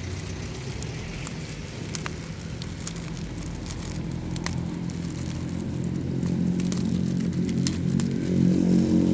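Plastic and foil toy packaging crinkling and tearing as it is pulled open, with scattered sharp crackles. Underneath is a low droning hum that grows louder over the last few seconds and is the loudest sound near the end.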